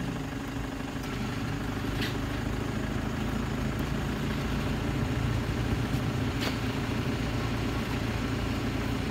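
Steady low hum of an idling engine, with two faint clicks about two seconds and six and a half seconds in.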